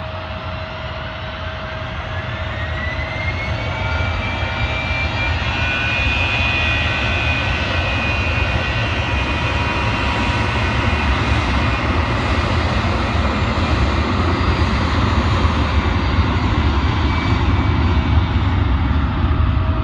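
Aircraft engines running loud and steady, with a whine that rises in pitch over the first few seconds as the sound grows louder.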